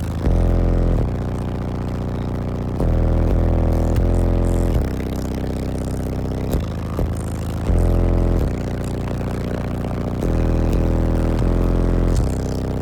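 Eight 12-inch Deaf Bonce subwoofers in a car playing deep bass notes of a song very loud, the notes held a second or two each and swelling louder several times. Car panels rattle and buzz with the bass.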